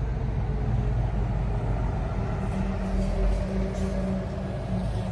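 Steady low rumble of motor traffic, with a faint hum running through it.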